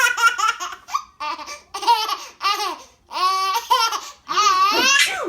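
Baby laughing hard at a sneeze, in a string of about six short, high-pitched bouts with brief pauses between them.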